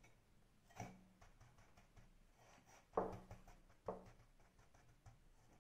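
A few faint, soft thumps and pats as a hand presses a disc of raw yeast dough into a ceramic bowl of breadcrumbs; the loudest comes about three seconds in.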